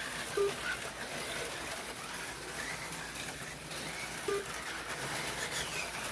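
HO slot cars running laps on the track, their small can motors and pickups making a steady high whirring hiss. A short beep sounds about half a second in and again about four seconds in.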